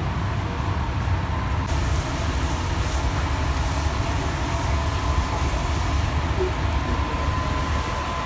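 Steady noise of a commercial kitchen: a loud low rumble with a faint steady whine, joined about two seconds in by a hiss, as from the kitchen's extraction and the gas-fired char grill with burger patties on it.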